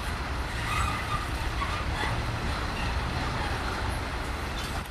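Container freight train rolling past close by: a steady low rumble of the wagons' wheels on the rails.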